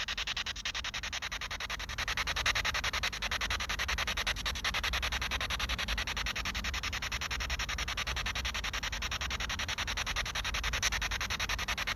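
Steady rasping static with a fast, even pulse, from an electronic ghost-hunting device played out loud through a speaker.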